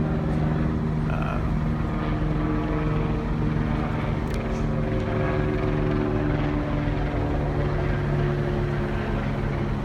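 A river passenger boat's engine running steadily, a constant low drone heard from on board.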